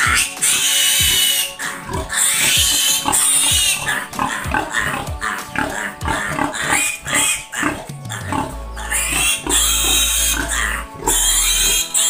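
Piglet squealing in long, shrill, repeated screams as it is castrated, over background music with a steady beat.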